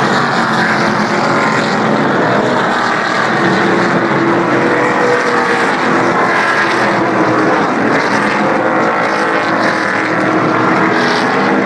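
The field of NASCAR Camping World Truck Series race trucks running at racing speed, their V8 engines blending into one loud, continuous drone of many engine notes that rise and fall as the trucks lap the speedway.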